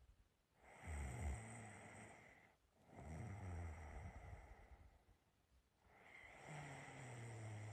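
A sleeping person snoring quietly: three long breaths in a row, each about two seconds long and carrying a low snore.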